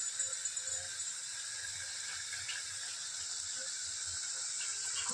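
Potato fingers deep-frying in hot oil in a pot: a steady sizzle of bubbling oil.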